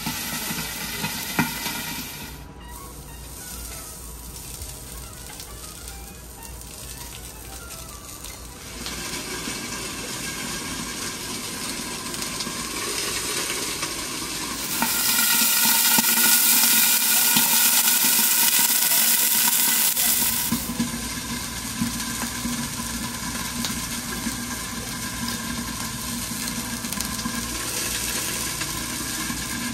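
Food sizzling on a teppanyaki steel griddle, a steady frying hiss that grows into a loud burst of hissing about halfway through, lasting roughly five seconds.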